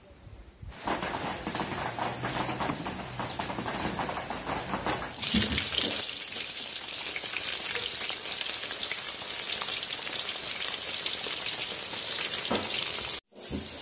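Hot oil sizzling and crackling around dough pastries frying in a wide pan. The sizzle starts about a second in and grows brighter and louder about five seconds in.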